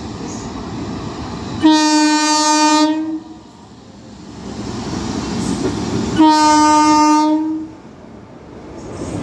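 Indian Railways locomotive horn, sounded twice in two steady blasts of about a second and a half each, as the express train pulls into the station. The train's rumble runs underneath and swells between the blasts.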